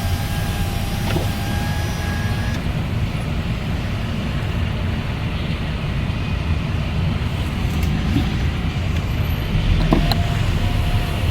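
A car driving, with a steady low rumble of engine and road. A faint high whine is heard in the first couple of seconds and again near the end.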